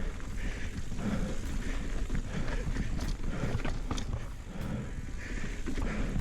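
Ibis Ripmo AF mountain bike riding over a rocky trail: tyres rumbling over rock, with frequent sharp knocks and rattles from the bike.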